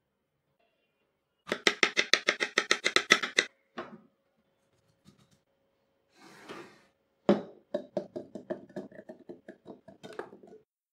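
Knife chopping fast on a bamboo cutting board, about ten strokes a second for two seconds. Later, apple and banana pieces drop one after another into a plastic blender cup, a string of knocks starting with one loud one.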